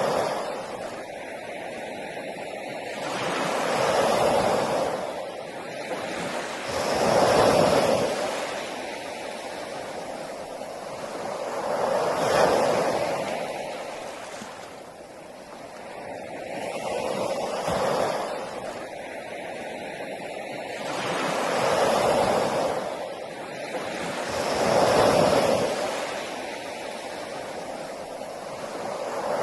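Sea waves washing onto a beach: surf that swells and fades in repeated surges, about seven in this stretch, a few seconds apart.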